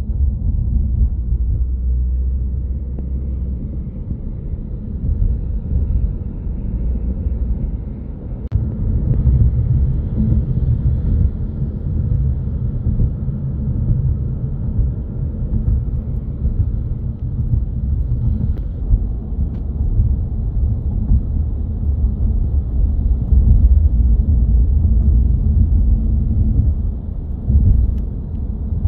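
Car cabin road noise while driving: a steady low rumble of tyres and engine, a little louder from about eight seconds in.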